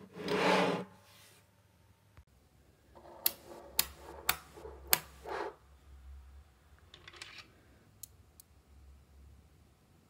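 Small magnetic balls clicking and snapping together as they are handled and placed. There is a brief rattle at the start, then a run of five or six sharp clicks about three seconds in, and a few fainter ticks later.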